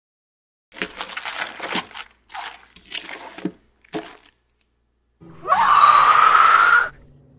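Four short bursts of crunching, crackling noise, then a loud shrill wail about five seconds in that rises in pitch and holds for about a second and a half before cutting off.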